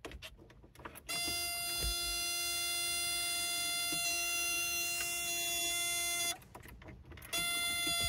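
A steady, even buzzer tone like a warning alarm. It comes on abruptly about a second in, holds for about five seconds, cuts off, and starts again a second later.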